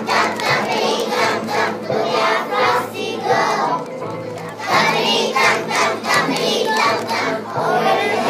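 A group of kindergarten children singing a song together to music, in rhythmic phrases.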